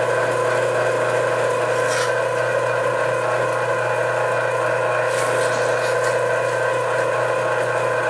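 Electric meat grinder's motor running with a steady hum while ground pork is pushed down the feed tube with a plastic stomper and reground through the plate.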